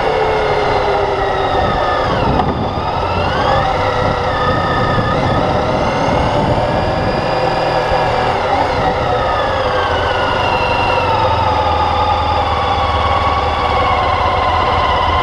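Motorcycle engine running under way. Its pitch dips sharply and rises again about two and a half seconds in, then climbs slowly and steadily.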